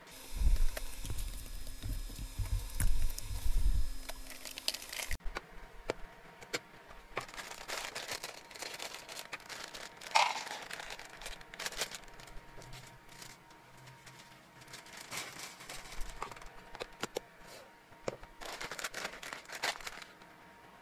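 A plastic treat bag crinkling loudly as it is handled and opened. About ten seconds in, hard dried carob (locust bean) pieces are tipped rattling into a plastic storage jar, followed by scattered clicks and rustles as the bag and jar are handled.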